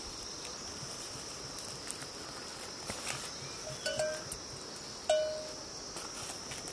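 A steady high insect drone, with a cattle bell ringing twice, about four and five seconds in, the second strike louder and fading out.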